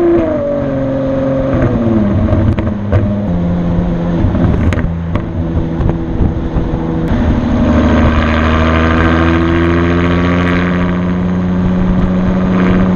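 Ferrari FF's V12 running through a Tubi Style valved exhaust while driving. The revs fall in steps over the first few seconds, then from about seven seconds in the pitch climbs steadily and louder as the car accelerates. There is road and wind noise underneath and a few sharp clicks.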